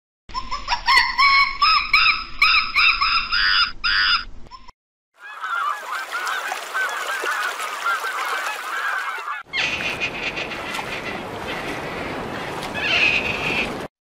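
Domestic geese honking. First comes a run of loud, repeated honks; after a brief break, a flock calls over one another in quick overlapping honks; the last few seconds are noisier, with a further burst of calling near the end.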